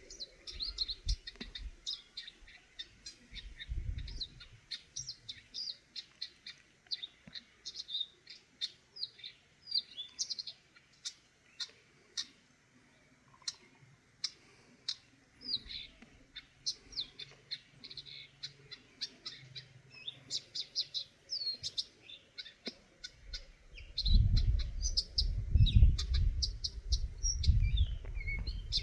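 Eurasian nuthatch calling: many short, high chirps, often in quick runs. About four-fifths of the way through, a loud low rumble sets in beneath the calls.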